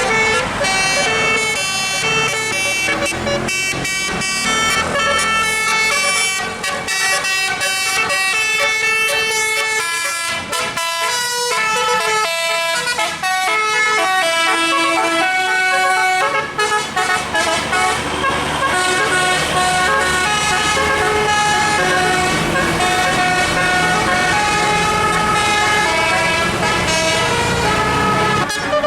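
Bus 'telolet' horn, a multi-note electric air horn, playing a tune: short held notes stepping up and down in pitch one after another.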